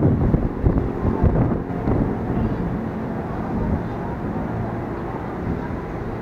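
KRL Commuterline electric multiple-unit train on the far track: a steady low rumble, loudest in the first two seconds and then settling to an even level.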